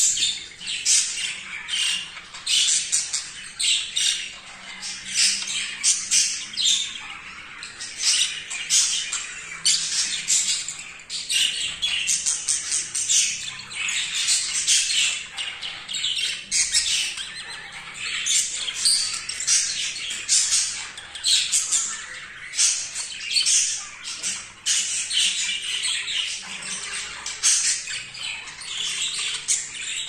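Budgerigars chattering: a dense, unbroken run of rapid, harsh, high chirps and squawks.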